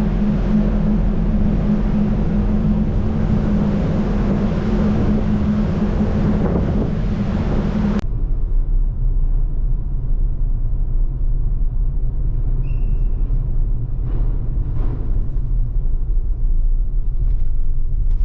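Steady rumble of a car's engine and tyres heard from inside the moving car. About eight seconds in, the sound changes abruptly to a lower, deeper rumble.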